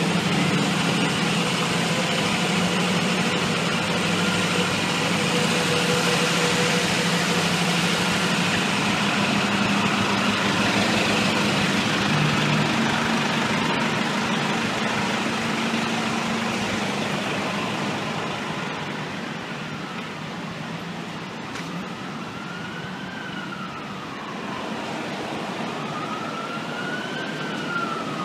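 A fire truck's diesel engine idling close by, a steady rumble with a low hum, which fades about two-thirds through. Then a siren wails in the distance, rising and falling slowly, with two peaks near the end.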